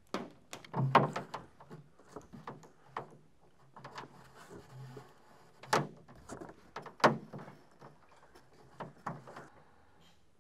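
Irregular clunks, clicks and knocks of hands handling parts and wiring on a car body during an emergency-light install, loudest about a second in and again around six and seven seconds in.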